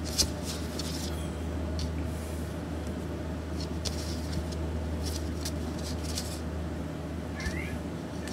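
A 3.5-week-old Pembroke Welsh Corgi puppy gives one short, high, rising squeak near the end, over a steady low room hum and a few faint ticks.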